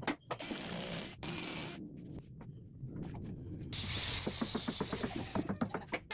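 Cordless drill working in short bursts with mechanical ratcheting clicks, turning into a run of rapid clicks, about eight a second, from about four seconds in.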